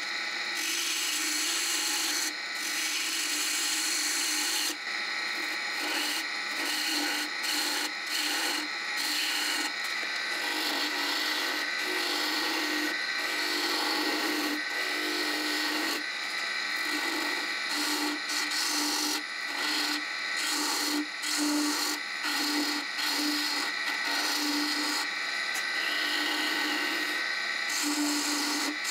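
Wood-lathe gouge cutting the thin stem of a spinning wooden goblet and peeling off shavings. The cut runs on, broken by many brief gaps as the tool comes off the wood.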